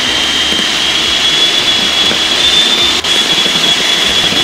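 Electric hand mixer running steadily with a high whine, its wire beaters working flour into a runny egg-and-oil batter. Its level dips for an instant about three seconds in.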